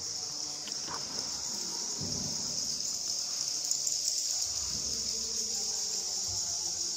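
Steady high-pitched chorus of insects chirring, with a few faint low muffled sounds beneath it.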